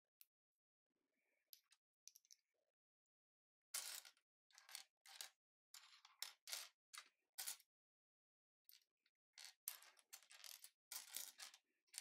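Plastic LEGO bricks clicking and clattering as hands pick through a loose pile of pieces, in quiet runs of short clicks: one starting about four seconds in, another near the end.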